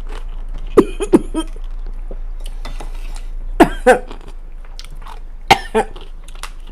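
Biting into and chewing a crunchy hot and spicy dill pickle, with sharp crunches about a second in. Short throat sounds come twice, a little over three and a half seconds in and again about five and a half seconds in.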